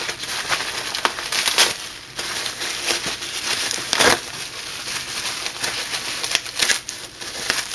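Packing material crinkling and rustling as parts are unwrapped by hand, with scattered small clicks and knocks.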